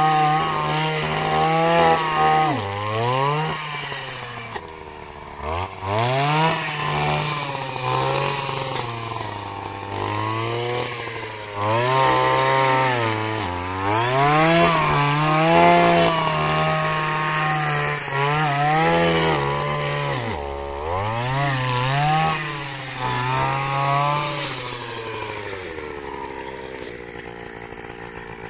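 Zenoah Komatsu BC4500 two-stroke brushcutter engine running at high revs while cutting grass. Its pitch dips and climbs again about a dozen times as it works. Over the last few seconds it drops back and fades toward idle.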